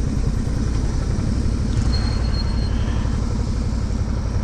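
Steady low rumble of a motorcycle on the move, wind and engine noise blended with no distinct engine note.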